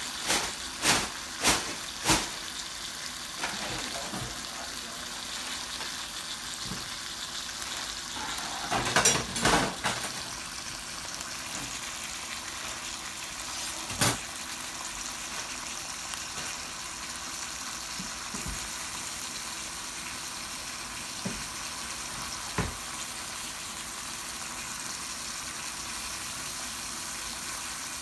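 Sliced sausage, onion and green bell pepper sizzling steadily in oil in a frying pan. A few sharp knocks break in: four in the first two seconds, a cluster about nine seconds in, and one more about fourteen seconds in.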